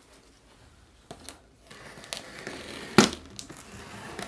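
A knife slitting the packing tape along the top seam of a cardboard box: a scratchy tearing sound with a few small knocks before it and one sharp crack about three seconds in.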